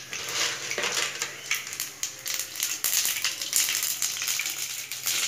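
Mustard seeds spluttering in hot cooking oil: a dense, irregular crackle of small pops over a sizzle. The oil is hot enough for tempering.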